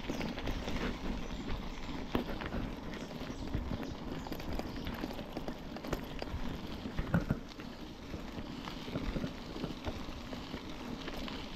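Mountain bike rolling along a rough road, with a steady rush of tyre and wind noise and irregular clicks and knocks as the bike rattles over bumps.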